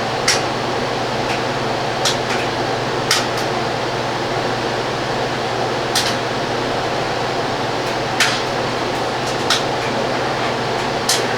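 Steady fan-like whirring hum, with a few small sharp clicks scattered through it.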